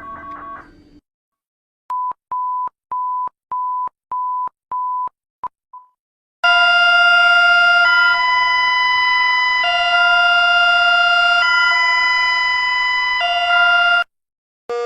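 Emergency alert broadcast tones: a run of short high beeps, about two a second, then a loud alarm of several tones sounded together. The alarm switches back and forth between two chords roughly every second and a half, then cuts off sharply.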